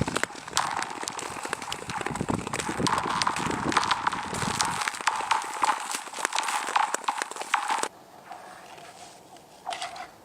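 Frozen lake ice sounding under impacts: a rapid, irregular run of sharp clicks and knocks, each ringing on with a twangy echo through the thin ice. It drops off suddenly about 8 s in, with one more short burst near the end.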